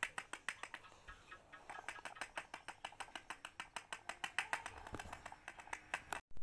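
Rapid light tapping on a handmade paper funnel, about six taps a second, shaking powder through it into the narrow opening of a refrigerant can. The tapping stops abruptly just before the end.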